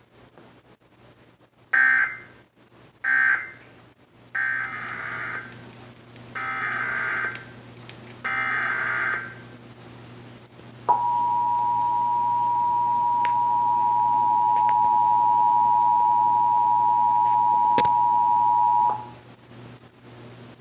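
Emergency Alert System tones: two short bursts of data tones, then three one-second bursts of the screeching SAME digital header, then the steady two-tone EAS attention signal (853 and 960 Hz) held for about eight seconds.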